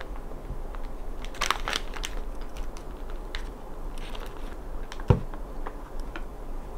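Items being handled on a wooden desk: light rustles and small clicks, a brief crinkly patch about a second and a half in, and one sharp knock on the desktop about five seconds in.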